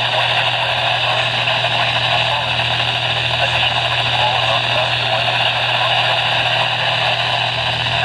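Midland NOAA weather radio putting out steady static hiss through its small speaker, with a low hum under it, as if tuned to a channel with little or no signal.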